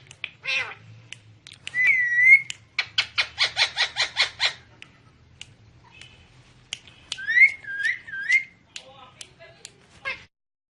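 A ringneck parakeet calling: a rising whistle, a fast run of about a dozen short notes, then more gliding whistles and clicks.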